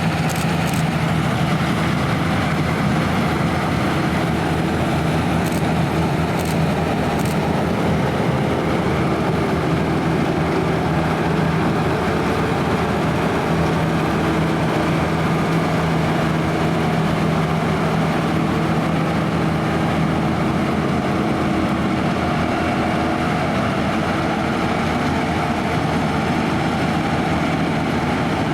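Claas Lexion 580 Terra-Trac combine harvester running steadily while combining barley, a loud, even machine sound with a low engine hum.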